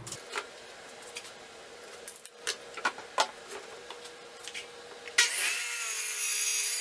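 Light knocks and clicks of the board and tools being handled, then about five seconds in a compound miter saw starts suddenly and cuts through an old barn-wood board, a loud, hissing sound that is still going at the end.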